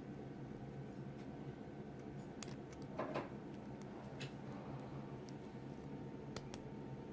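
Faint small metal ticks and clicks of a lock pick and tension wrench working the pins inside a brass-bodied padlock, with a brief scratchy rattle about three seconds in, over a steady low hum.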